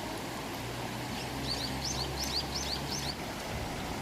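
Steady rush of a mountain stream, with a small bird giving a quick run of about ten high chirps in the middle. A low hum sits underneath for most of it.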